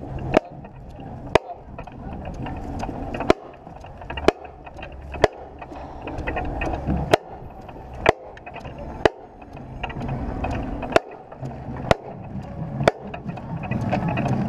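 Sharp drumstick clicks from the marching band's drumline keeping the walking beat, about one a second in a repeating pattern of three clicks and a rest, over the low rumble of the band's shuffling footsteps.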